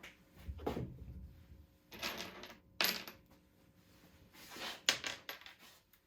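A few separate clinks and knocks of small hard objects being handled, like screws or tools set down on a workbench, about one a second.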